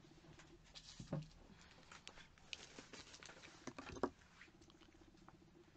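Faint rustling, tapping and clicking of cosmetic products and plastic wrapping being rummaged through by hand, with a louder knock about four seconds in.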